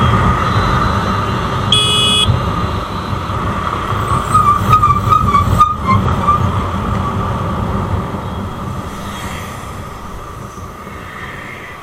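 Steady rumble of engine, wind and road noise from a vehicle travelling along a road, with a short horn beep about two seconds in. The noise eases off over the last few seconds as the vehicle slows behind traffic.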